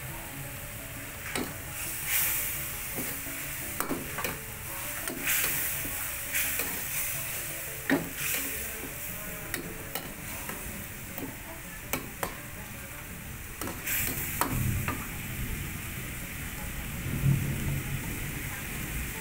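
Goat-meat tongseng sizzling in a wok over a gas burner, stirred with a metal ladle that scrapes and clinks against the wok again and again.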